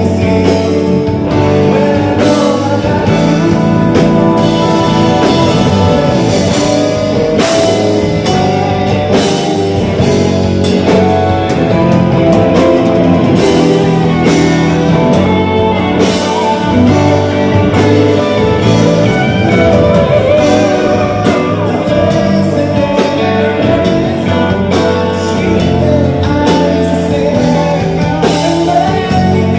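Live band playing a Filipino pop ballad on electric guitar, bass guitar, drum kit and keyboard, with a male lead vocal.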